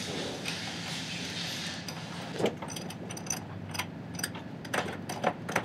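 Small metal clutch parts and tools clicking and clinking on a wooden workbench as they are handled during assembly: a steady hiss for the first couple of seconds, then a string of sharp separate clicks, the loudest just after two seconds in.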